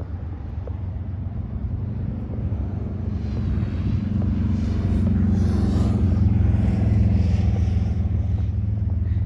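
Low engine rumble with a steady droning hum, growing louder about three seconds in and holding near its peak through the second half, with a faint sweeping hiss above it.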